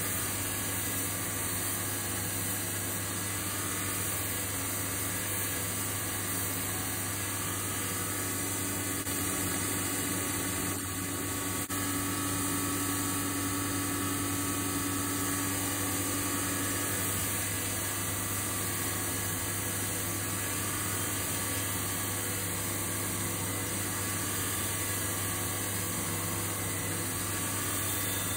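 Belt sander driven by an 8-inch, 1 horsepower bench grinder, running steadily with a dust extractor drawing air from the belt. A low tone stands out over the steady hum from about eight seconds in until about seventeen seconds.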